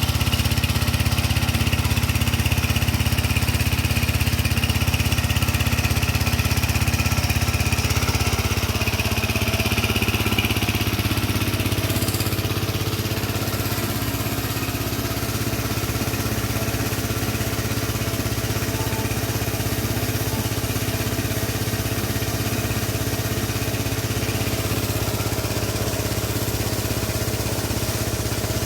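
Small engine of a motorcycle-wash pressure washer, fuelled by LPG from a 3 kg gas canister, running steadily at a constant speed. It is slightly louder for the first eight seconds or so, then runs a touch quieter.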